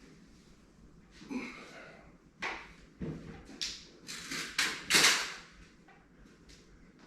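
Handling noises while unpacking a floor-standing speaker: a run of short scrapes and knocks, the loudest and longest about five seconds in.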